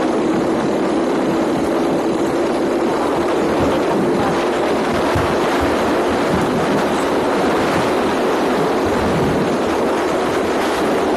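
Motorcycle riding at steady cruising speed: a constant engine hum under loud wind and tyre noise on a concrete road.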